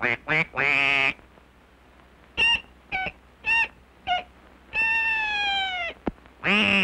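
Cartoon voice effects. At the start a duck quacks in short choppy bursts. A little chick then cries four short high cries and one long cry that falls slowly in pitch. Near the end the duck gives a long, loud squawk.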